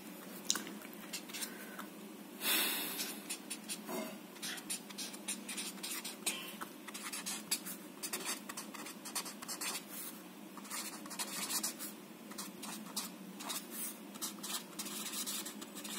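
Felt-tip marker writing on paper: quick runs of short scratchy strokes, with one longer, louder rub about two and a half seconds in.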